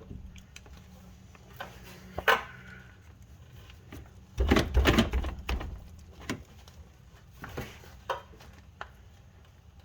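Screwdriver prying at a Honda Civic's rear main seal, the metal tip clicking and scraping against the stubborn seal. A sharp click comes about two seconds in, and a louder burst of knocking and scraping about four and a half seconds in, with scattered small ticks after it.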